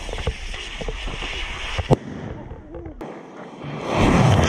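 Crackling sharp pops and a hard crack about two seconds in, then a loud rushing blast near the end: a small explosion or firework going off.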